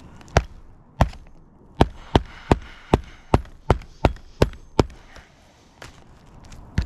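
Hammer blows on an asphalt-shingle roof: two single strikes, then a steady run of about nine at two to three a second, and one more near the end.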